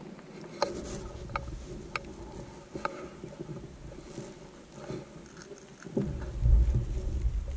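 A few sharp clicks about a second apart in the first three seconds, then a low rumble from about six seconds in, typical of handling or wind noise on a rifle-mounted camera.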